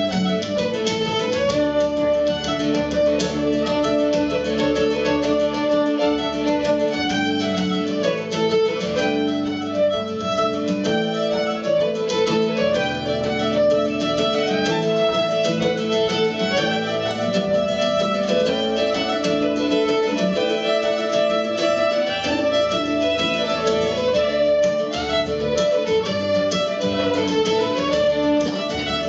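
Two fiddles playing a Scottish fiddle tune together over acoustic guitar accompaniment, with a steady level throughout.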